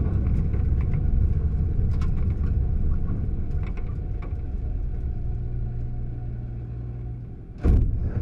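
Rally car engine and drivetrain heard from inside the stripped cabin: a low rumble with gravel ticking against the underside. It eases to a steady low engine note as the car slows. A single sudden loud thump comes near the end.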